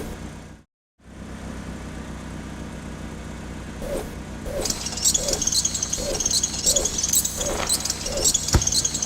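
Cartoon vehicle sound effects: a steady engine hum with a chirp repeating about twice a second, cut off briefly just under a second in. About halfway through a glittering high shimmer joins it, and there is a single sharp knock near the end.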